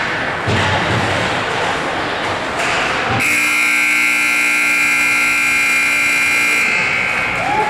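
Hockey rink horn sounding one steady, harsh blast of about three and a half seconds, starting about three seconds in, after a stretch of steady noise.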